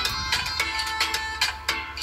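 Instrumental background music with quick, evenly spaced notes.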